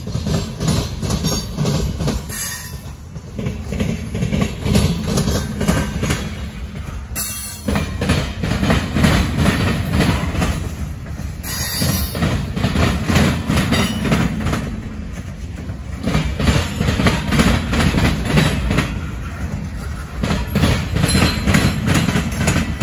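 Freight train of covered hopper cars rolling past close by. Steel wheels clatter over the rail joints in a fast, continuing clickety-clack over a heavy low rumble.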